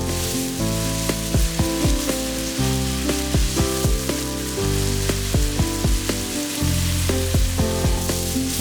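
Food frying in a pan with a steady sizzle, under background music with held notes and plucked bass tones.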